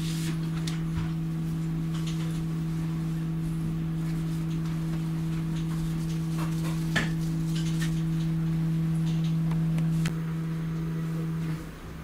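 Steady low hum of equipment aboard a double-decker passenger carriage, one pitch with a fainter overtone, with light scattered clicks and knocks over it. The hum cuts off suddenly near the end.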